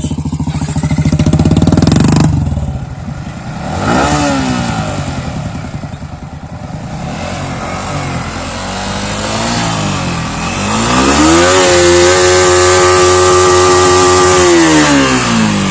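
Yamaha MT-15's 155 cc single-cylinder engine revved while standing, heard through its exhaust: a loud rev in the first two seconds, a few short throttle blips that rise and fall, then a long rev held high for about three seconds before dropping back near the end.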